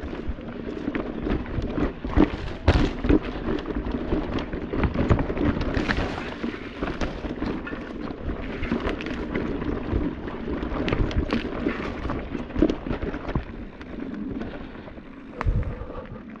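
Electric mountain bike clattering over a rocky trail: a continuous rumble of tyres and frame over rock, broken by many irregular sharp knocks and rattles as the wheels hit stones.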